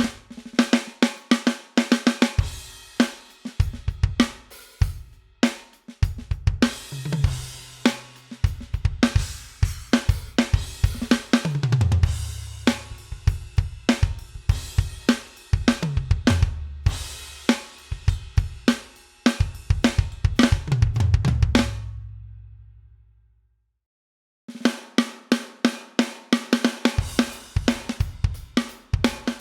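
Sampled acoustic drum kit from a Pearl Mimic Pro electronic drum module, played live: grooves of kick, snare, hi-hat and cymbals, with several fills that step down the toms. The playing stops for about two seconds near the end, then a new groove starts.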